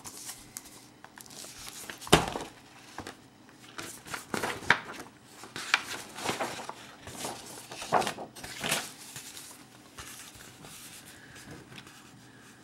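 Pages of a picture book being flipped and handled close to the microphone: a series of short papery rustles and flaps, the loudest about two seconds in.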